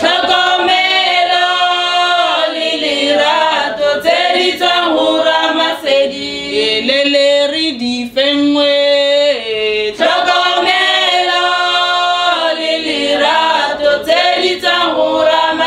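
A women's group singing a traditional Setswana song a cappella: voices in unison and harmony, with long held notes and sliding pitches.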